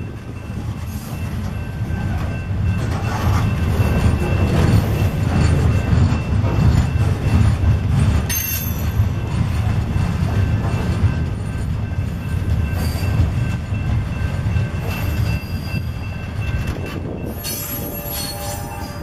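Freight train of gondola cars rolling past under the pull of two GE Dash-9 diesel locomotives, a heavy continuous low rumble of wheels on rail that swells and then eases, with thin steady wheel squeal above it. A short, sharp high squeal sounds about eight seconds in.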